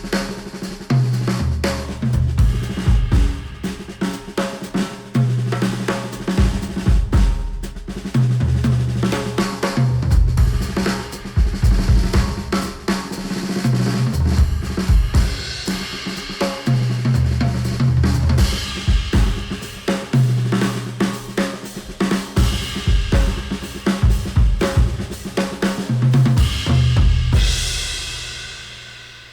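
Drum-heavy music track with a full drum kit and held bass notes, played back through Sennheiser open-back headphones and picked up by microphones at the earcups. It fades out near the end.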